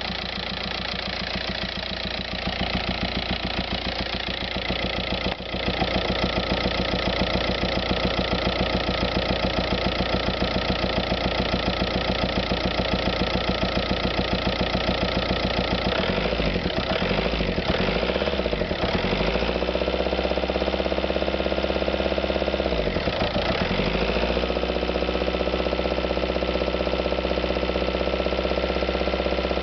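VW Passat TDI diesel engine running with an even pulsing beat and the weird noise its owner is showing. The revs change, falling and rising a few times between about 16 and 19 seconds in and again around 23 seconds.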